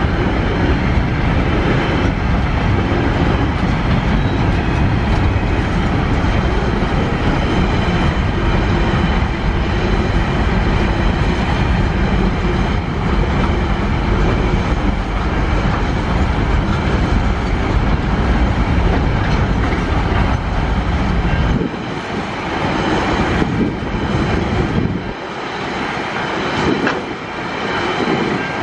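Freight train of loaded container wagons rolling past on the rail line, a loud steady rumble of wheels and wagons. About three-quarters of the way through, the low rumble falls away as the end of the train goes by, leaving fainter rail noise.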